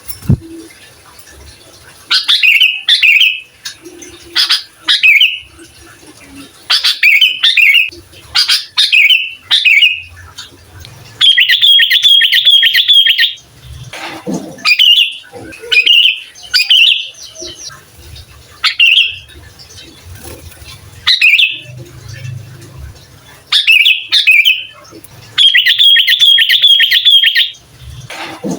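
Sooty-headed bulbul (kutilang) singing: short phrases of a few quick notes, repeated every second or two. Twice it gives a longer run of rapidly repeated notes, about two seconds each.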